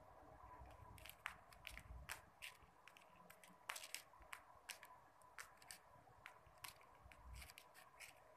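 Faint, irregular small clicks and scratches of a kitten's claws on a slatted mat as it paws and pounces at a bare foot.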